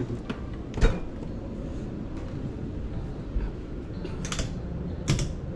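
Cabinet and appliance doors being handled: a single thud about a second in as the refrigerator door shuts, then a few sharp clicks near the end as a push-to-open cabinet panel is pressed and its latch releases. A steady low background noise runs underneath.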